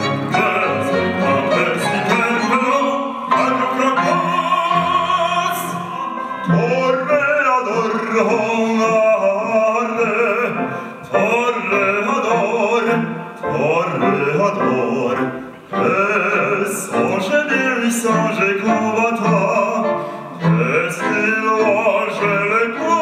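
Operatic singing with vibrato, accompanied by a small string ensemble of violins and cello.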